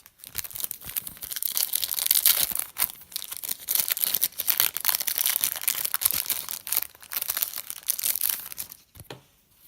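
A trading-card pack wrapper being torn open and crinkled in the hands, a dense crackling that goes on for several seconds and stops near the end.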